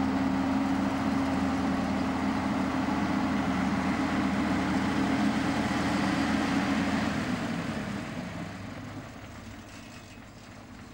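Škoda ŠT 180 articulated tractor's diesel engine running steadily as the tractor pulls away towing a disc harrow. The sound fades from about seven seconds in as the tractor moves further off.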